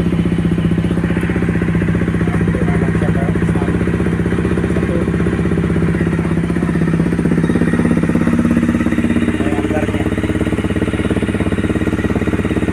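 Honda CRF250's single-cylinder four-stroke engine idling steadily just after starting, heard through an aftermarket FMF header pipe and muffler.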